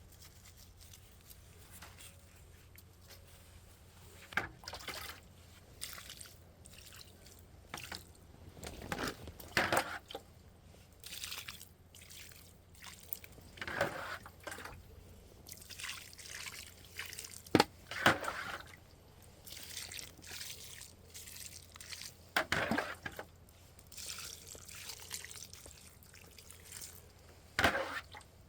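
Intermittent liquid sounds: scattered splashes and drips a few seconds apart.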